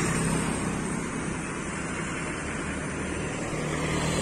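Steady rush of wind and road noise from moving along a road, with a low engine hum underneath.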